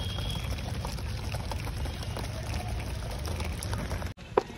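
Water running from a tap and splashing while a man drinks straight from it: a steady rushing that breaks off abruptly near the end, followed by a short click.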